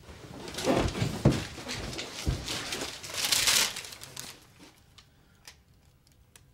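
A sheet of letter paper rustling and crinkling as it is handled, loudest about a second in and again a little after three seconds, with a few soft thumps in the first couple of seconds.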